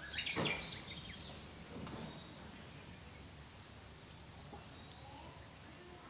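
Sado frog (Glandirana susurra) calling: one louder call about half a second in and a fainter one about two seconds in, with scattered faint calls over a steady background hiss.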